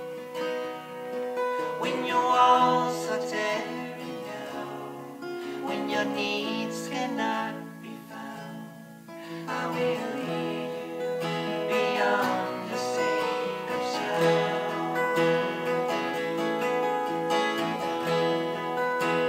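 Two acoustic guitars played together, with men singing along. The music drops to a quieter stretch around eight to nine seconds in, then builds again.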